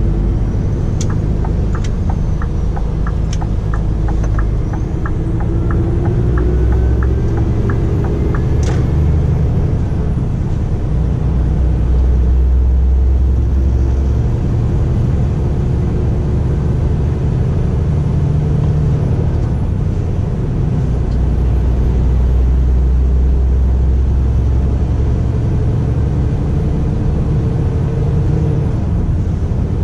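Scania R450 truck's straight-six diesel engine running under way, with a steady low rumble and road noise. The engine note climbs slowly several times as it accelerates. A regular light ticking, about two to three a second, runs through the first nine seconds or so.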